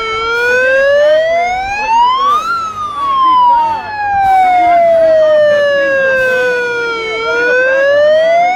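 Handheld megaphone's siren setting wailing loudly, its pitch sweeping slowly up and down: rising for about two and a half seconds, falling over about four and a half, then rising again near the end. Crowd voices are faint underneath.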